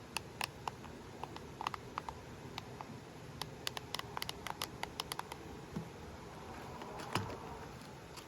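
Irregular light clicks and taps of hands handling and snapping parts into a toy remote-control stunt car, mostly in the first five seconds, with one more click about seven seconds in.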